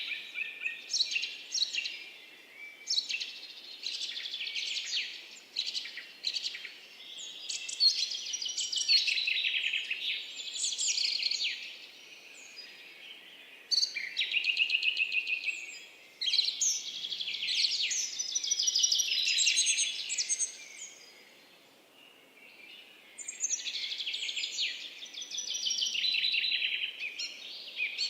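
Songbirds chirping and singing in quick twittering phrases, one after another, with brief lulls about halfway through and again about three quarters of the way through.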